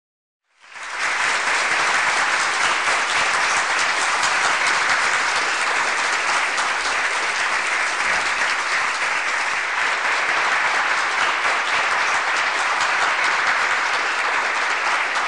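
Large audience applauding: a dense, steady round of clapping that starts suddenly about half a second in and keeps up without letting off.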